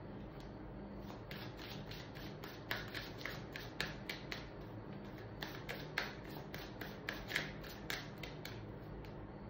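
A tarot deck being shuffled by hand: a run of quick, irregular card snaps and taps, several a second, starting about a second in and stopping shortly before the end.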